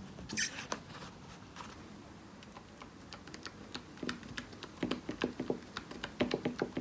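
Typing on a mini computer keyboard: a brief rustle about half a second in, then key clicks that start sparse and come faster and louder from about four seconds in.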